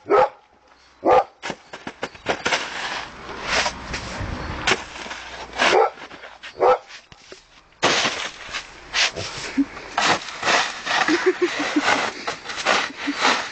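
Small dog giving short, sharp barks now and then while scrabbling in snow, with scratchy crunching noise that thickens in the second half.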